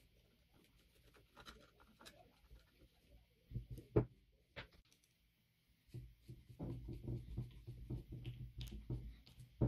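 Screwdriver clicking and scraping against the screws of a hand-cranked grinder's metal cover, with handling noise from the grinder. There is a sharp click about four seconds in, then a stretch of dense scraping and rubbing from about six to nine seconds.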